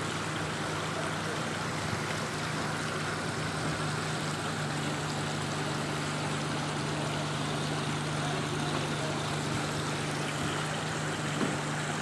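Water trickling and splashing down artificial-rock decorative fountains into their basins, a steady even rush of falling water, with a steady low hum underneath.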